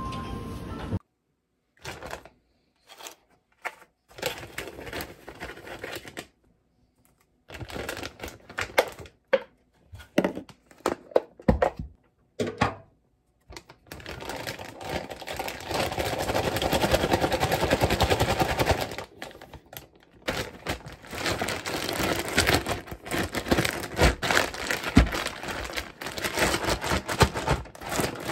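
Close-up kitchen prep handling sounds: a plastic food bag crinkling and rustling as tofu and chopped greens are put into it, with irregular clicks and knocks of containers and utensils. The rustling is densest for a few seconds in the middle.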